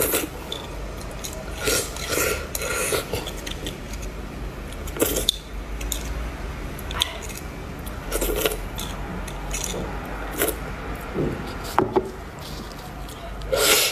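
Metal fork scraping and clicking inside a roasted beef marrow bone, with wet slurping and chewing as the marrow is eaten. The clicks and mouth sounds come irregularly, a few loud ones standing out.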